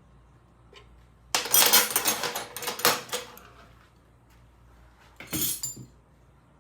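Small loose metal parts clattering and jingling for about two seconds while being rummaged through by hand, then a shorter rattle near the end.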